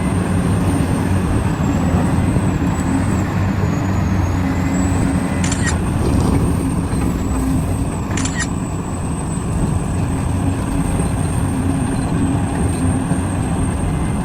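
Heavy diesel machinery engine running steadily: a low drone with a thin high whine over it, broken by two brief clicks about five and a half and eight seconds in.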